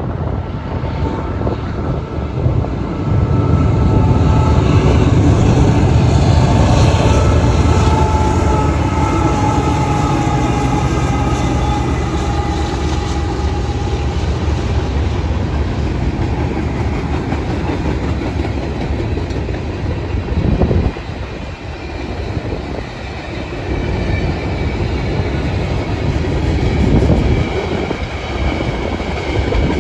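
Diesel-hauled freight train passing close by: the locomotive's engine gives a low rumble that is loudest in the first third, then the freight cars roll past with wheels clicking over the rail joints.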